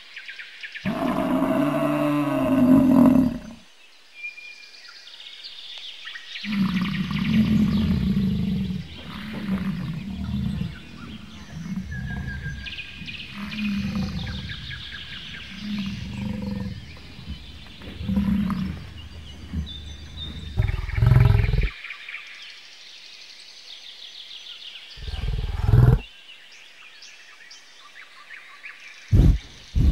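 American bison bellowing. There is a long, low bellow near the start, then a run of repeated low bellows about every second and a half, and a few more short bellows near the end.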